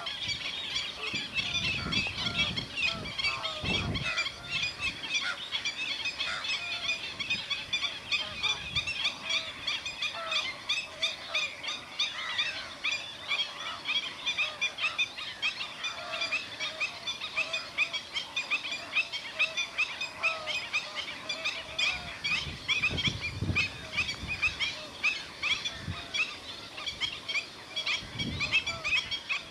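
A large flock of greater flamingos calling continuously: many overlapping goose-like honks and gabbling calls.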